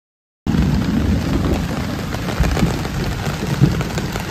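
Sudden heavy rain pouring down, a dense patter with a deep rumble underneath. The sound cuts in abruptly about half a second in, after dead silence.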